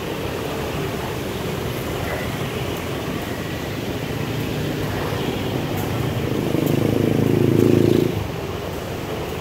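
Steady low engine rumble. About six and a half seconds in, a louder engine sound swells, then cuts off sharply about a second and a half later.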